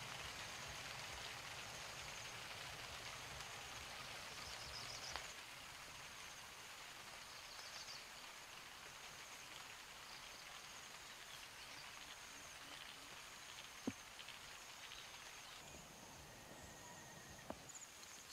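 Faint outdoor ambience: a steady hiss with a continuous high-pitched buzz, and a few soft clicks, the sharpest a little past two-thirds of the way through.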